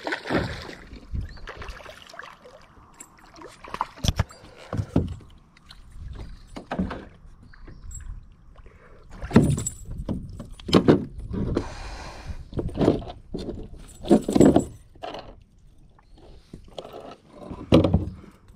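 A hooked largemouth bass splashing beside a plastic kayak, then irregular knocks, thumps and rustling as it is landed and handled in the kayak. There is a sharp knock about four seconds in, and a run of louder bursts of handling noise in the second half.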